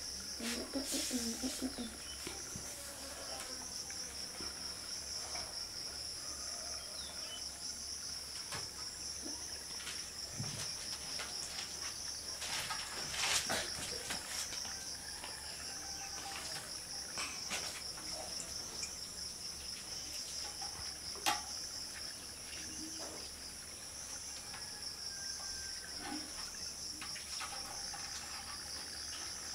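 Insects chirring steadily in a continuous, high-pitched pulsing trill, with occasional soft clicks and knocks over it.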